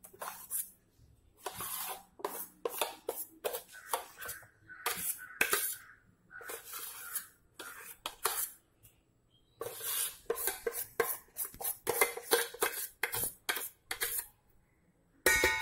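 Steel spoon scraping thick ground urad dal batter out of a steel bowl into a larger steel pot: a long run of irregular metal-on-metal scrapes and clinks, with a ringing clink of steel near the end.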